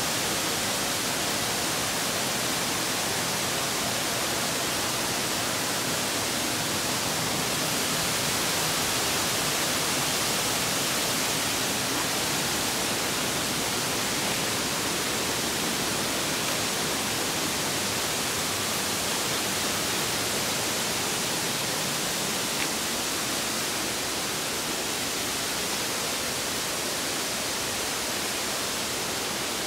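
Steady rush of flowing mountain water, an even hiss that sits mostly in the high range and does not change.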